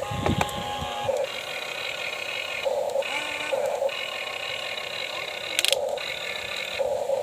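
Small electric gear motors of a radio-controlled model excavator whining in short alternating spurts, a lower whine trading off with a higher, buzzier one as different functions are worked. There are a few low thumps just after the start and a sharp click about five and a half seconds in.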